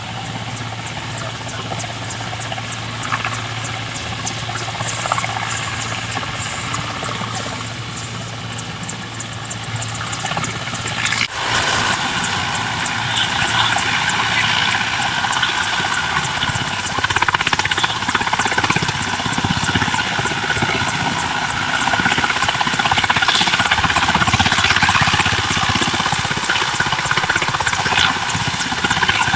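Helicopter hovering, its rotor blades giving a fast, steady chop over the engine's noise; it gets suddenly louder partway through and stays loud.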